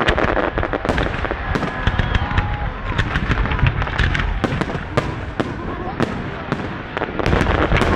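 Fireworks display: a dense, irregular run of sharp bangs and crackles from bursting shells, several a second, over a continuous low rumble.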